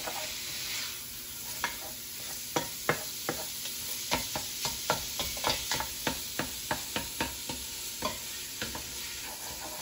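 Ground Italian sausage sizzling as it browns in a stainless steel pot, while a spatula stirs it, clicking and scraping against the pot at about three strokes a second.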